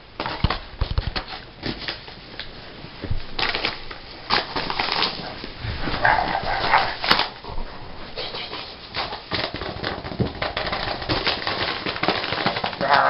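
A plastic bubble mailer crinkling and crackling as a kitten pounces on it and a hand shakes it, with irregular scratchy clicks, and a brief louder sound about six seconds in.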